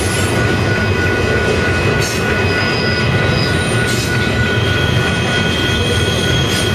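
Double-stack container freight train rolling past with a steady rumble, its wheels squealing in thin, steady high tones as the cars round the curve. A higher squeal joins about four and a half seconds in, and there are a few sharp clacks from the wheels.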